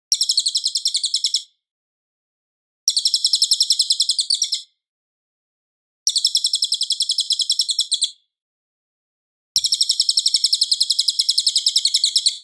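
Cililin bird song: four bursts of rapid, high-pitched repeated chirps, about nine notes a second, each burst lasting one and a half to three seconds with short silent pauses between them, the last burst the longest.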